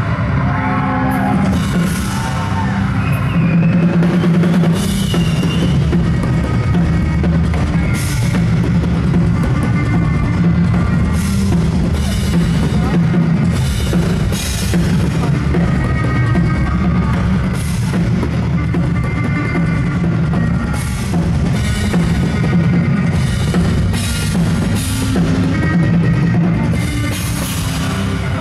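Live rock music with drums and a strong bass guitar line, the bass played with both hands on the neck of an upright, stand-mounted bass.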